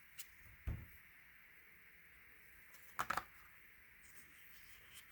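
Tarot cards being handled on a table: a soft low bump about a second in, then a quick flurry of card flicks and clicks around three seconds in, with a few faint ticks between.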